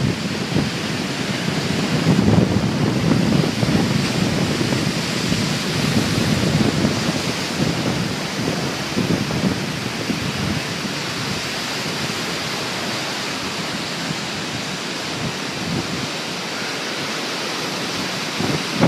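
Storm-surge waves breaking heavily and rushing up the beach in a steady wash of surf. Gusty wind buffets the microphone in swells, strongest in the first half.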